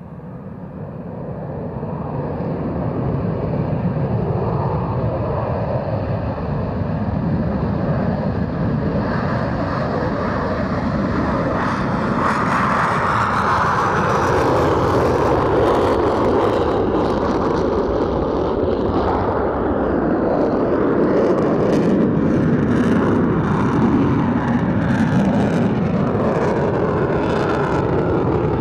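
F-22 Raptor jet fighter's twin Pratt & Whitney F119 turbofans at takeoff power: a jet roar that swells over the first few seconds and then holds loud and steady as the fighter lifts off and climbs away, with a crackle coming through in the later part.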